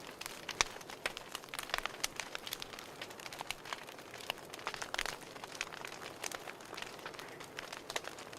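Fireplace fire crackling: irregular sharp pops and snaps over a soft steady hiss.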